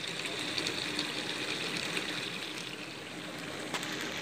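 Chicken pieces sizzling in spiced oil and ghee in a frying pan as they are sautéed in the masala: a steady crackling hiss with a faint click near the end.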